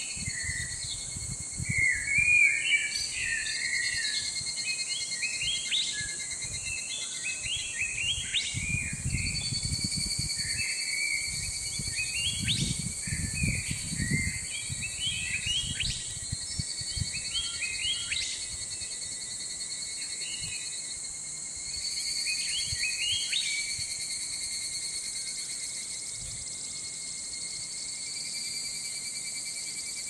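Small birds chirping in short, quick notes over a steady, high-pitched insect trill, with a few low rumbles of wind on the microphone. The birdsong thins out over the last third.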